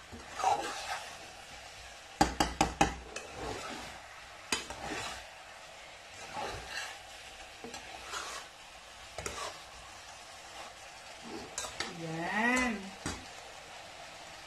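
A spatula stirs fried tofu cubes in oyster sauce in a nonstick saucepan, scraping and knocking against the pot over a soft sizzle. There is a quick run of four or five louder knocks about two seconds in.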